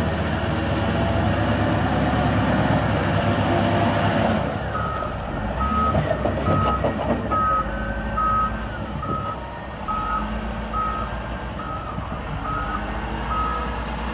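Caterpillar 950F wheel loader's diesel engine working as the loader pushes dirt, then its reversing alarm beeping about twice a second from about four and a half seconds in as it backs up, with a few clanks soon after the beeping starts.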